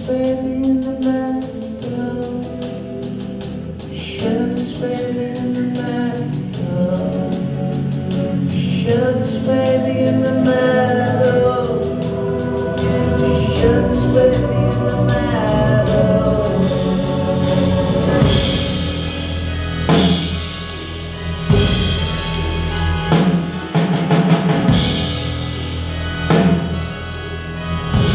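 Live band music: keyboard chords and a man singing over a drum kit, with heavy drum hits coming in from about two-thirds of the way through.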